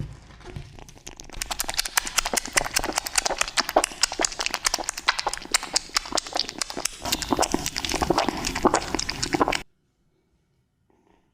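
Kittens eating tuna: a fast, dense run of wet smacking and chewing clicks that stops abruptly near the end.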